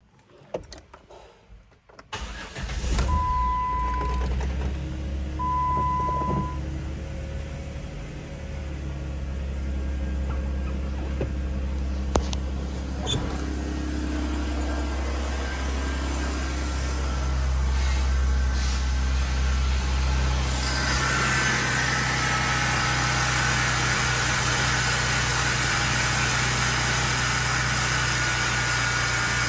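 A 2010 Jeep Wrangler's 3.8-litre V6 is started about two seconds in, after a few clicks, and then runs steadily, with two short dashboard beeps just after it starts. From about twenty seconds in the engine is heard idling from the open engine bay, sounding brighter with more hiss.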